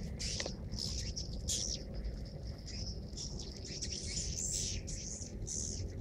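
Swiftlets twittering: a dense run of short, high-pitched chirps, several a second, over a low steady background rumble.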